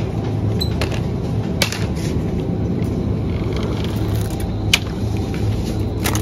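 Steady low hum of a supermarket chilled aisle with a few sharp clicks. The last click comes near the end as a hand touches a plastic tray of chicken.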